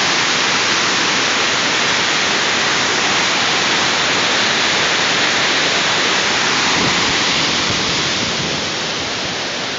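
Floodwater rushing steadily in a rain-swollen creek, a continuous loud rush that eases slightly over the last couple of seconds.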